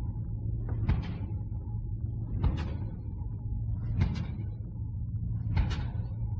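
Slow heavy metal intro: a low sustained chord rings under four evenly spaced drum and crash cymbal hits, about one every second and a half.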